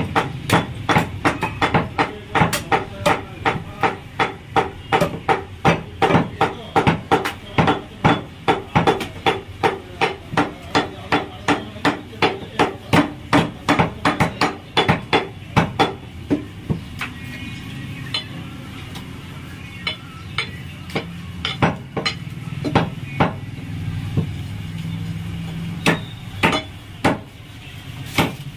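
Butcher's cleaver chopping through a goat carcass on a wooden chopping block: a quick, even run of strikes, about three a second, then from about halfway on fewer, spaced-out strikes.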